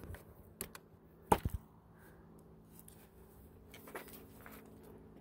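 A few sharp clicks and knocks of wood and metal being handled among split firewood logs, the loudest about a second and a half in, over a faint steady low hum.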